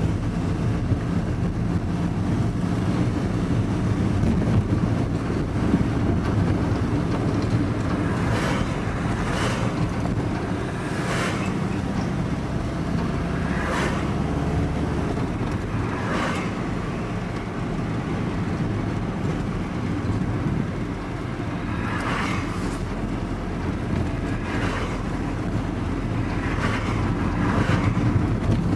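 Inside a moving vehicle's cab: steady engine and road rumble while driving. Brief whooshes come several times, as oncoming traffic passes.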